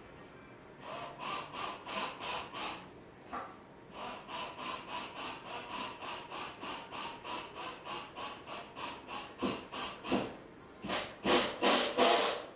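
Hand saw cutting in quick, even back-and-forth strokes, about three or four a second, with a short break, and a few louder strokes near the end.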